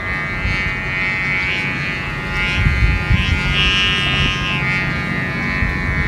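Sumba kite's hummer buzzing in the wind overhead: a steady, many-toned drone that wavers slightly in pitch, over a low rumble.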